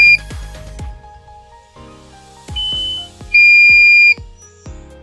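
Electronic beeps over background music with a steady beat: a shorter, higher beep about halfway in, then a longer, louder, lower beep, in a pattern that repeats every few seconds.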